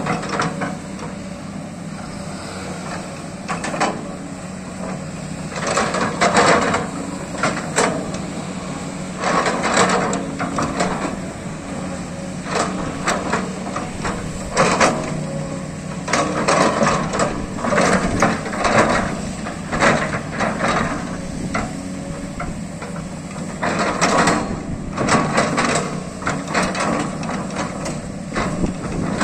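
SANY crawler excavator's diesel engine running steadily under load, with repeated irregular scraping and clattering as the bucket digs into dry earth and stones.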